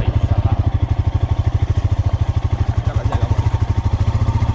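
Motorcycle engine running steadily at low revs, its exhaust beat a quick, even pulse.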